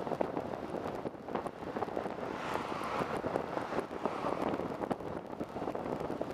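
Steady engine and road noise from a moving bus, with a constant crackle. A hiss swells about halfway through as another car passes alongside.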